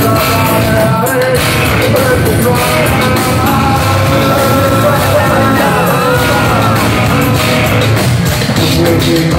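A heavy rock band playing live and loud: distorted electric guitars, bass guitar and drums, with a vocalist singing and yelling into a microphone.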